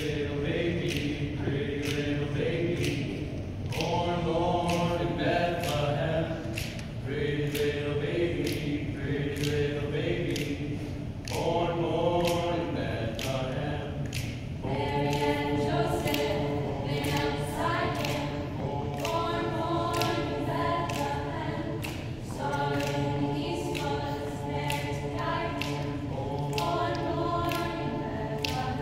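A youth madrigal choir of mixed voices singing a cappella in close harmony, in phrases of held chords a few seconds long, over a steady beat of sharp clicks about two a second.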